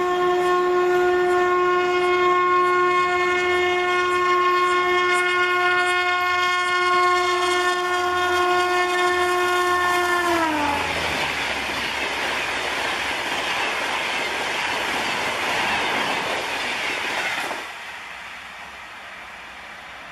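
Train horn sounding one long, steady blast as an express train approaches at speed, its pitch dropping sharply as the locomotive passes about ten seconds in. The loud rush and clatter of the coaches running by follows, then cuts off abruptly near the end.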